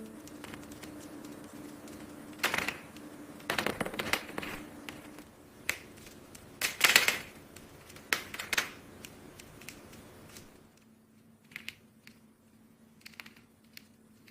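Close-miked crunching and chewing of a chocolate brick being eaten by a cat: irregular crisp cracks and crackly bursts, the loudest about 7 seconds in, thinning to a few faint clicks near the end. A faint steady hum runs underneath.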